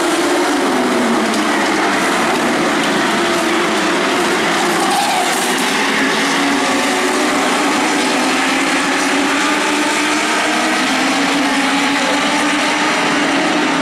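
A pack of Legends race cars running at speed on the track, their Yamaha four-cylinder motorcycle engines revving high. Several engine notes overlap, each rising and falling as the cars pass.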